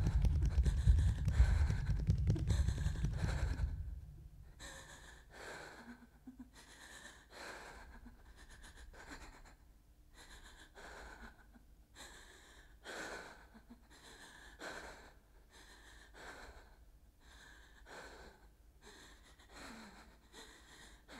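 A deep rumble that stops about four seconds in, then a person breathing hard in quick, quiet, evenly repeated breaths, about one to two a second.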